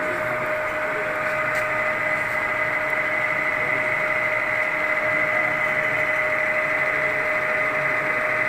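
Lathe running steadily, a constant machine whine with a high, even tone over a mechanical hum.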